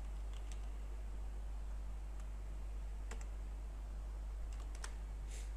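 Computer keyboard keystrokes: a few separate clicks about a second apart while a word is typed, over a steady low hum.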